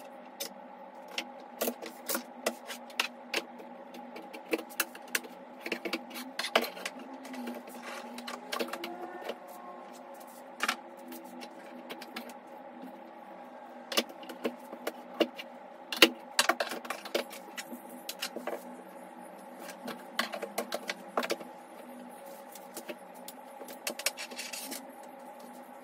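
Repeated clicks, knocks and light clatter of objects being handled and set down on a wooden desk while an adjustable laptop stand is set up and tilted, over a steady low hum.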